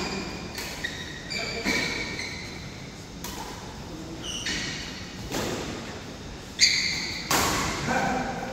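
Badminton rally: sharp smacks of rackets hitting the shuttlecock, irregularly about once a second, each ringing briefly in a large hall, the loudest about two-thirds of the way through.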